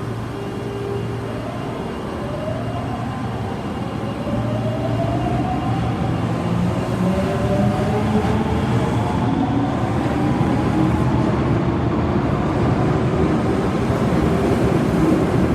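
Osaka Metro Tanimachi Line train accelerating, its traction motors giving a whine that rises in pitch over several seconds above the running noise of the wheels, growing slowly louder.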